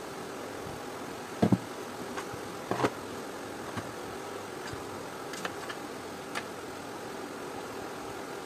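Plastic and metal parts of a steam iron knocking and clicking as the black plastic housing is handled and fitted back over the soleplate: two sharp knocks about a second and a half in, another just before three seconds, then a few lighter clicks. A steady hiss runs underneath.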